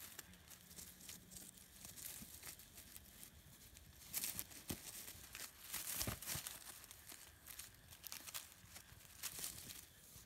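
Dry scrub and leaf litter rustling and crackling as southern brown bandicoots (quenda) scuffle through it, in irregular bursts that are busiest about four to six seconds in.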